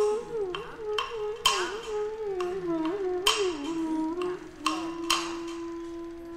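Accompanying music in an Indian classical style: a single melody line winding through ornamented slides, settling into one long held low note near the end, over sharp ringing percussion strikes at irregular intervals.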